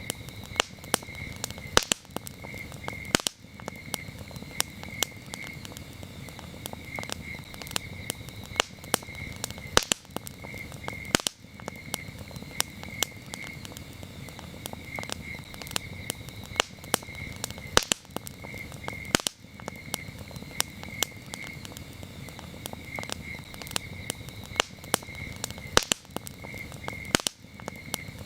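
Campfire crackling, with frequent sharp pops of varying loudness, while crickets chirp in short repeated pulsing trills.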